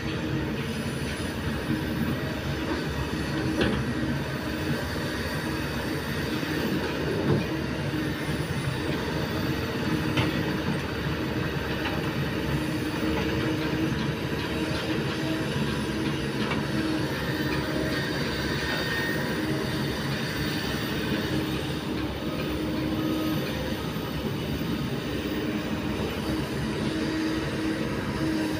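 Kobelco SK200 hydraulic excavator working: a steady diesel engine drone with hydraulic whine as it digs dirt, and a few sharp knocks along the way.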